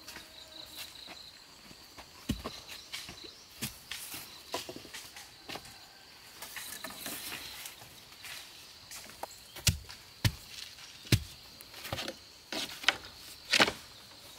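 Irregular sharp knocks and clatter, sparse at first and louder and closer together in the second half, over a steady high-pitched insect buzz.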